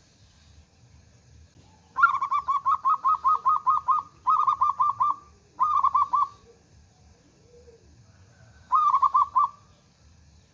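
Zebra dove (perkutut) calling: four runs of quick, evenly spaced cooing notes, about five a second, the first and longest starting about two seconds in and the last near the end.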